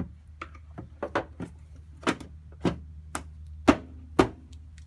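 A series of sharp plastic clicks and knocks at uneven spacing, with the two loudest near the end, from a car's tail light assembly and bulb socket being handled and refitted.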